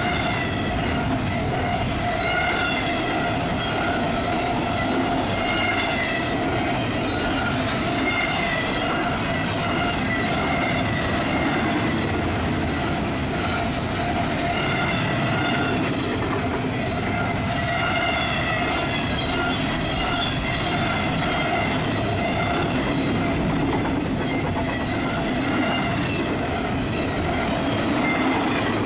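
Double-stack container train's cars rolling past on the rails, a steady rumble with a constant hum and a high, wavering wheel squeal above it.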